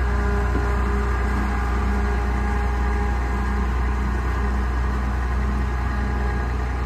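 John Deere 7720 combine's diesel engine running steadily as the combine is driven and turned around.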